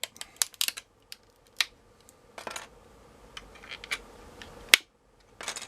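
Scattered clicks, taps and short scrapes of a plastic notebook battery case being pried and broken apart around its lithium-ion cells, with one sharp click near the end.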